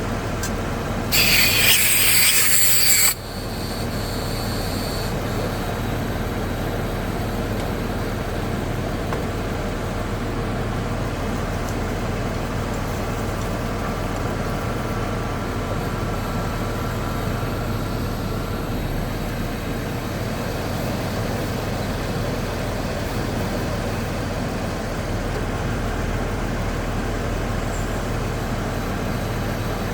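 2008 Saturn Vue's engine idling steadily with the air-conditioning compressor engaged. About a second in, a loud hiss of escaping refrigerant lasts about two seconds and cuts off.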